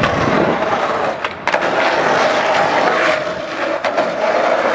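Skateboard wheels rolling over rough asphalt and paving, a steady rough rumble, with one sharp knock about a second and a half in.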